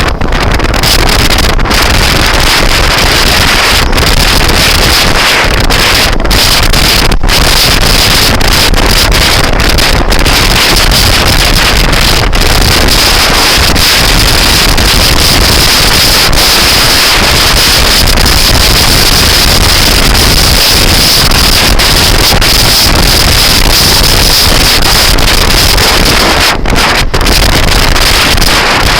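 Loud, steady wind noise buffeting the microphone of a moving scooter, which drowns out everything else.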